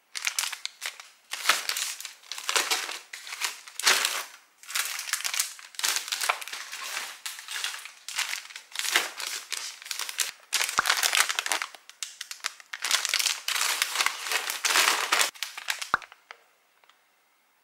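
Plastic-wrapped packs of baby wipes crinkling and rustling as they are handled and pushed into a suitcase, in irregular bursts that stop about sixteen seconds in.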